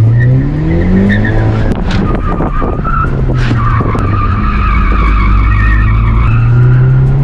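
Hyundai Elantra N's turbocharged four-cylinder engine accelerating and revving through the gears, heard from inside the cabin. Over the middle few seconds the tyres squeal through tight cornering.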